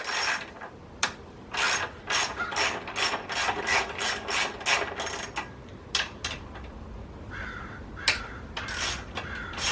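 Socket ratchet clicking as it loosens the 12 mm exhaust hanger bolts: a run of quick clicks, about three a second, then a pause of a couple of seconds, then another short run.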